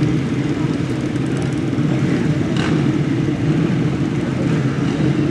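Several motocross bikes' engines running together on the start line, a loud steady drone of mixed engine notes held while the riders wait for the gate to drop.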